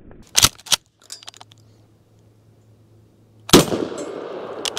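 Mossberg 590 .410-bore pump-action shotgun firing: two sharp cracks shortly after the start, then about three and a half seconds in the loudest shot with a trailing echo of about a second, followed by a quick double clack near the end, as the pump is worked.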